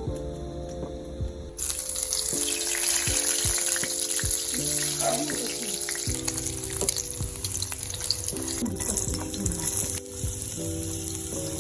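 Background music over a loud, steady hiss that switches on abruptly about one and a half seconds in and cuts off near the end.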